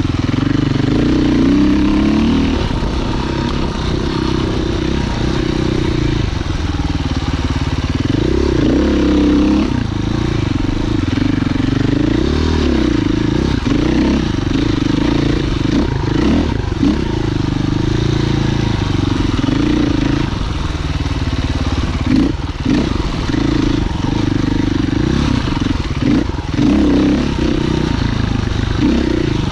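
Husqvarna FE 501's single-cylinder four-stroke engine being ridden on dirt trail, its pitch rising and falling with the throttle. The engine sound dips briefly a couple of times near the end.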